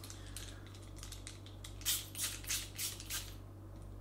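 Screwdriver turning a small screw in the handle of a Benchmade Hunt Crooked River folding knife: a run of short clicks, faint at first and louder from about two seconds in until just past three seconds.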